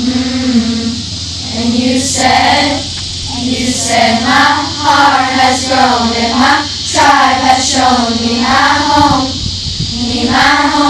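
A large group of young girls singing a camp song together, one melody in unison, in phrases with short breaks between them.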